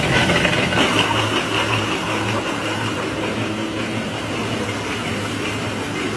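Rotary veneer-peeling lathe and workshop machinery running steadily: a low motor hum under a dense rasping noise of wood being peeled, strongest in the first couple of seconds.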